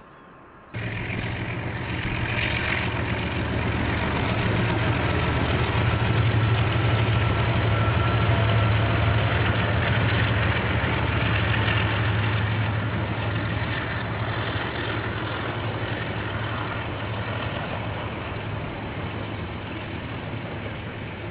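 KiwiRail diesel locomotive engine running with a steady low drone as a train passes, cutting in abruptly about a second in, growing louder to a peak around six to nine seconds in, then slowly fading. Heard through a security camera's microphone, which dulls the top end.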